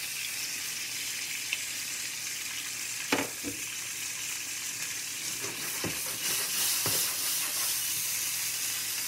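Hanger steak sizzling steadily in butter in a hot cast-iron skillet, with a few sharp knocks about three to seven seconds in, the loudest just after three seconds.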